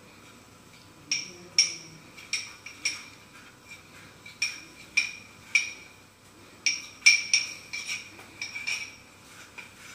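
Spoon clinking against a small bowl while cornflour is stirred into water, a run of ringing clinks starting about a second in, with short pauses between bursts of stirring.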